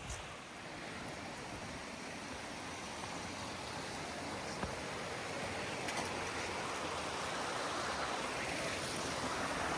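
Creek water rushing steadily, growing gradually louder.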